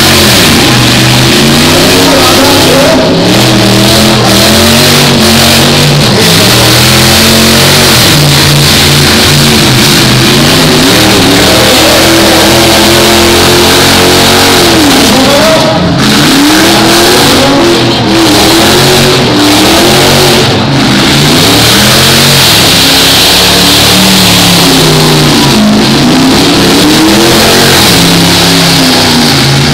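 Demolition derby engines revving hard, their pitch rising and falling over and over as the pickup truck and the car push against each other.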